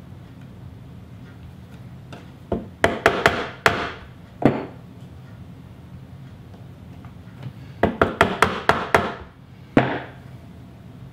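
Bench chisel chopping into the wood of a cabinet door frame, cutting out a damaged section square: two runs of quick, sharp cracks, six or seven in each, about five a second, starting about two and a half seconds in and again near eight seconds.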